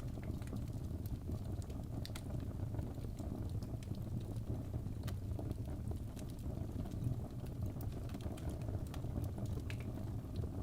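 Wood fire burning in a fireplace: irregular sharp crackles and pops over a low, steady rumble of the flames.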